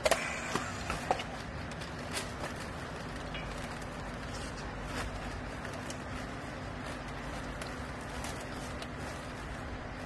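Steady machine hum with a constant low tone, and a few sharp clicks and taps from a handheld battery strapping tool being worked on plastic strap. The clicks come in the first second or so, about two seconds in and about five seconds in.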